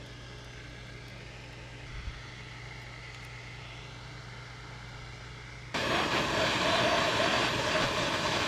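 Jeweler's gas torch flame: a steady low hum, then about six seconds in a loud, even rushing of the torch starts as the flame is brought onto a silver ring joint to flow medium solder.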